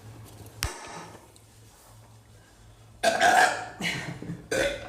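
A boy belching loudly after gulping fizzy soda: one long burp about three seconds in, then a shorter one near the end.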